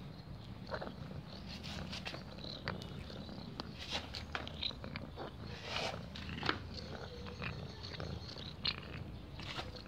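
Cat purring steadily close to the microphone, with scattered short smacking clicks from its mouth as it eats.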